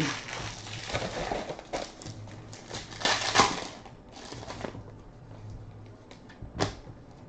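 Trading cards being handled between call-outs: card stock sliding and rustling with light clicks and taps, the loudest rustle about three seconds in and a sharp tap near the end.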